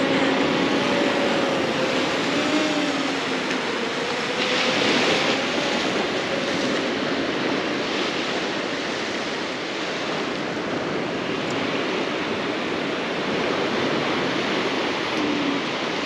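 Steady surf noise, with the propeller hum of a DJI Air 2S drone wavering in pitch as it carries a hanging fishing rig out over the sea. The hum fades after the first five or six seconds.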